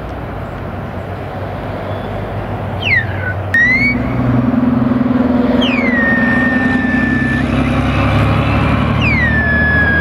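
A heavy engine running, probably a truck or work machine, which gets louder about three and a half seconds in. Over it come three high whistling squeals that each fall in pitch and then hold steady for a second or so.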